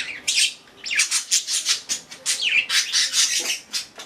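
Pet budgerigars chattering: a rapid run of short, harsh chirps and squawks, with a few falling calls among them.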